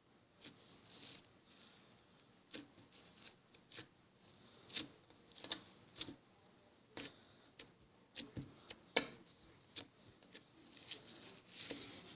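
Steady high-pitched chirping of a cricket, with irregular sharp clicks and knocks over it; the loudest click comes about nine seconds in.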